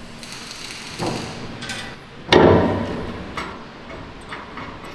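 Metal clanking and knocking from assembly work on a steel machine body: a sharp clank about a second in, a louder one a little over two seconds in, each ringing briefly, and a few lighter knocks and ticks after them.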